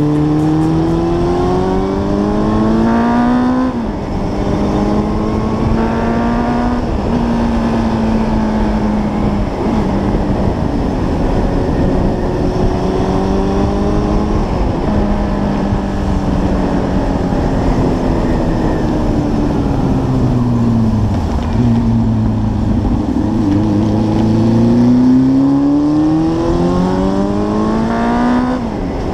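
Motorcycle engine and exhaust under way, the note climbing as it pulls up through the gears and dropping at shifts about three and a half and six and a half seconds in. It then cruises at a fairly steady pitch, falls off as the bike slows around twenty seconds in, and climbs again to another shift near the end.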